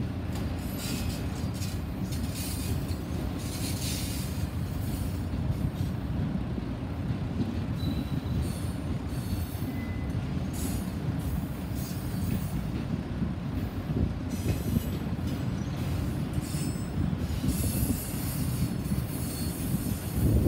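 Freight train's autorack cars rolling past with a steady low rumble of wheels on rail, broken every few seconds by stretches of high-pitched wheel squeal and screech.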